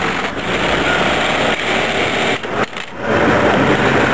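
DC-motor-driven industrial sewing machine stitching, with a busy mechanical whirr that drops away briefly about two and a half seconds in and then picks up again.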